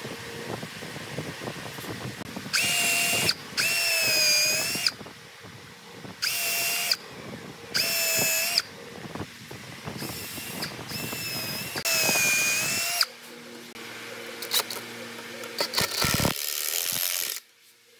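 Cordless drill with a countersink bit boring into a weathered wooden board. The motor whines in about seven short bursts of a second or so, each a trigger pull. In the last few seconds this gives way to a quieter low hum and a few sharp clicks.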